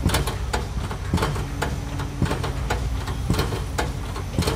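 Heavy diesel construction machinery running, a steady low drone, with sharp knocks repeating about twice a second.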